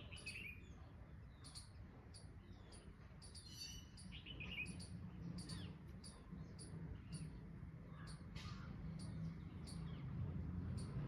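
Small birds chirping: a short, high chirp repeated about every half second, with a few other bird calls breaking in, over a steady low rumble.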